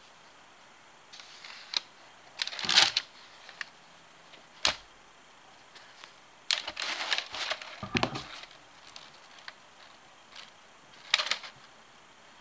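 New sneakers being handled and turned over: scattered rustles and a few sharp clicks and taps, in short bursts with quiet stretches between.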